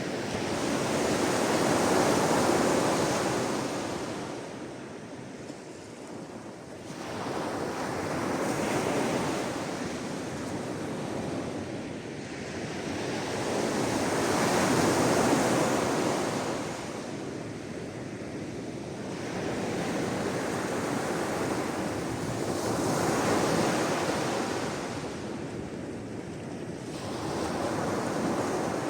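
Sea waves washing onto the shore, the surf swelling and fading in slow surges about every five to six seconds.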